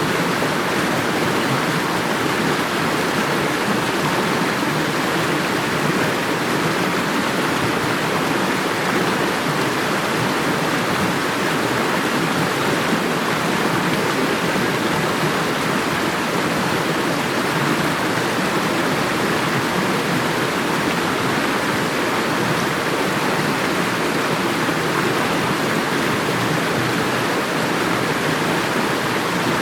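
Running water rushing loudly and steadily, with no breaks or changes.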